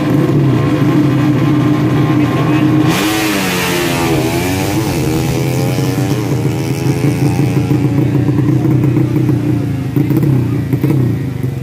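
Tuned 130cc four-stroke underbone motorcycle engine running steadily, revving up and down for a few seconds starting about three seconds in, then settling back.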